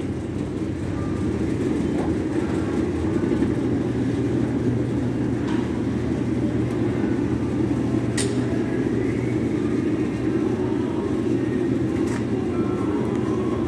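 Steady supermarket background rumble with a low hum, heard while moving along a refrigerated display case, and one sharp click about eight seconds in.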